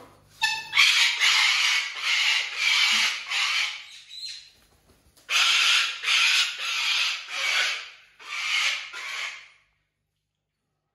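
White cockatoo screeching: loud, harsh, rasping calls about every half second, in two runs with a short pause about four seconds in, stopping abruptly near the end.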